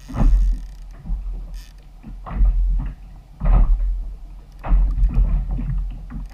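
Sea water slapping and knocking against the hull of a plastic fishing kayak in irregular thumps about every second or two, over a steady low wind rumble on the microphone.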